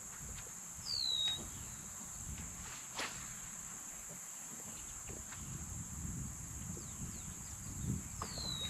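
Steady high-pitched drone of insects over a marsh, with a bird giving a short down-slurred whistle twice, about a second in and again near the end. A sharp click sounds around three seconds in.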